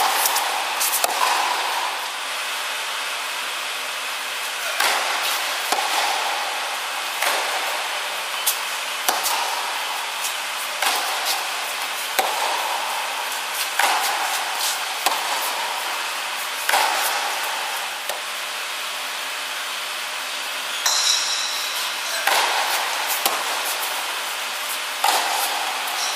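Tennis balls struck by racket strings and bouncing on a hard indoor court during a rally, a sharp pock every second or so, each echoing in the hall. A brief high squeak about two-thirds of the way through.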